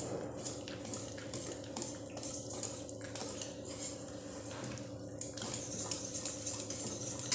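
Wire whisk beating a wet semolina and curd batter in a stainless steel bowl, the wires clicking and scraping against the metal sides at about three strokes a second.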